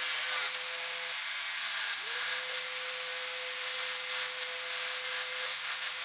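Small bench-top circular saw whining steadily while its blade cuts through a plastic sheet, with a steady hiss from the cut; the motor's tone falters about a second in and rises back about two seconds in.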